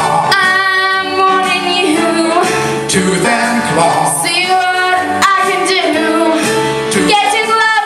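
A woman singing live into a microphone over instrumental accompaniment.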